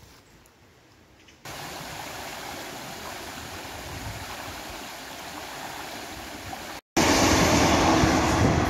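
A fast-flowing river rushing steadily, starting abruptly after a faint opening second or so. Near the end a passenger train running past takes over, much louder, with a low steady hum under the rumble.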